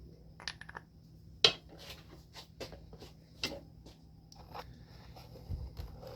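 Metal sockets and a dryer drum roller clinking and tapping as they are handled and lined up in a bench vise, in a string of separate clinks with the sharpest about one and a half seconds in.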